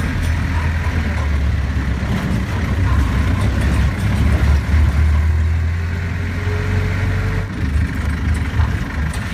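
Vehicle engine running with a steady deep rumble, heard from inside the vehicle; the rumble eases a little about seven and a half seconds in.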